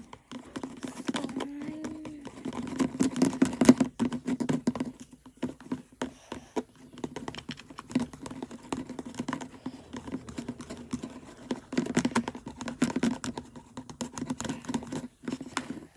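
Glue slime mixture being stirred in a container with a plastic spoon: rapid, irregular clicking and scraping against the sides.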